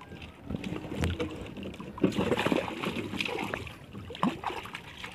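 Sea water sloshing and splashing around a small outrigger canoe and the bamboo fish trap held against its hull, with scattered light knocks as the trap is handled. The splashing is loudest about halfway through.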